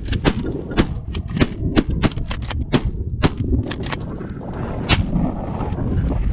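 A rapid volley of shotgun shots as the hunters fire on incoming geese, a dozen or so sharp cracks fired close together over the first four seconds, with one more shot near the end.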